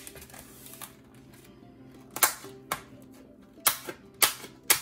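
Soft background music, with about five sharp snaps and crackles in the second half as the plastic wrap on a tray-packed beef roast is worked at and torn open.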